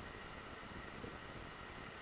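Faint steady hiss of quiet outdoor ambience with a few thin steady tones, and no distinct event.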